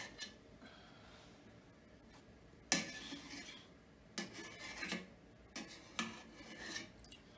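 Metal spoon scraping and rubbing inside a stainless steel pot, skimming congealed fat off chilled broth, in three strokes, the first a little before the middle.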